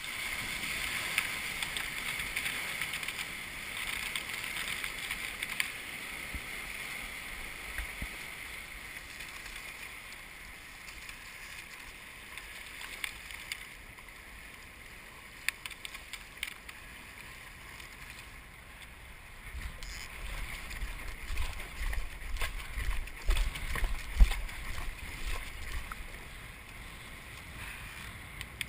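Water rushing and splashing along the hull of a V10 Sport surfski as it is paddled through choppy sea, a steady hiss with a few sharp splashes. From about twenty seconds in, low uneven buffeting gets louder for several seconds.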